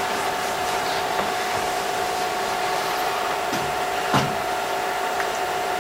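Steady whirring room noise from running equipment, with a constant pitched hum over it and one short knock about four seconds in.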